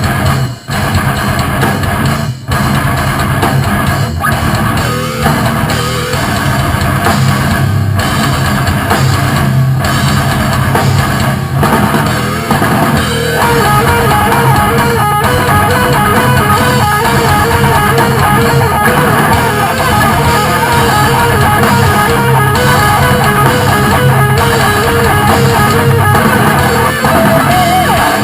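Heavy rock song played by a band in a studio take: distorted electric guitars and a drum kit. About 13 seconds in, a lead guitar line with wavering, bending notes comes in over the rhythm.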